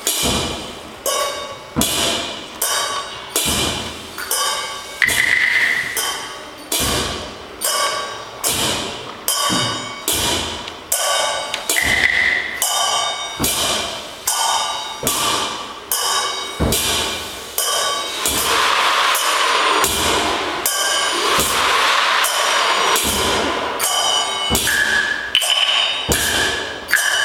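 Chinese percussion ensemble of gongs and cymbals playing a traditional piece. Strikes fall in a steady pattern about once a second, each ringing out, with some bright gong tones. About two-thirds of the way through, the playing turns into a dense, continuous clashing for several seconds before the single strikes return.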